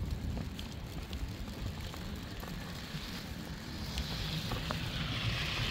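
Footsteps on fresh snow over a low wind rumble on the microphone. About four seconds in, a hiss of car tyres on the snowy road rises and grows louder as the car approaches.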